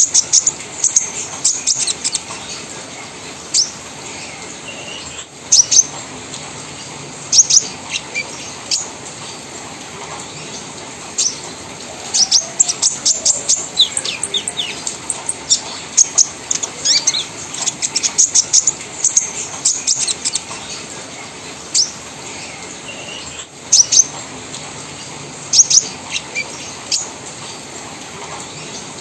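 Caged konin (brown-throated sunbird) singing: irregular bursts of short, high-pitched chirps run together into rapid chattering runs, with brief pauses between bursts.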